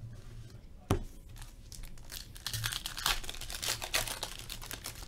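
Foil Upper Deck Portfolio hockey card pack wrapper being torn open and crinkled by hand, a dense crackling for about three seconds, after a single sharp tap about a second in.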